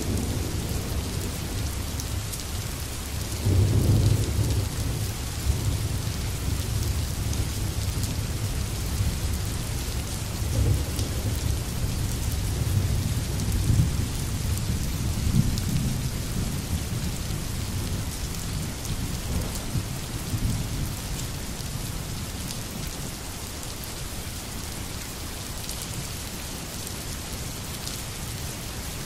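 Steady rain falling, with thunder rumbling low, loudest about four seconds in and again through the middle, then dying away so that only the rain remains near the end.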